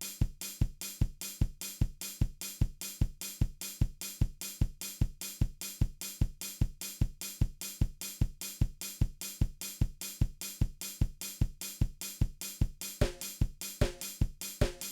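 Music: a steady drum-kit beat with kick, snare and hi-hat, about two kick strikes a second. A few pitched instrument notes join near the end.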